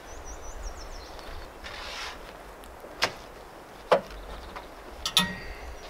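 Camp gear being handled around a pickup truck: a short rustle, then two sharp knocks about a second apart, then a metallic clank with a brief ring near the end. A bird chirps a quick run of falling notes at the start.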